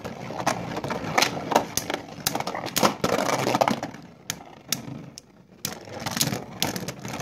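Two Beyblade spinning tops whirring and scraping across a plastic stadium floor, with many sharp clacks as they strike each other. The clacks thin out for a moment about four seconds in, then pick up again.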